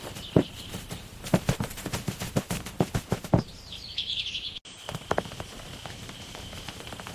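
Irregular sharp knocks and taps in quick succession, then a short burst of bird chirping about four seconds in that cuts off abruptly, over a faint steady high-pitched tone; a few more knocks follow.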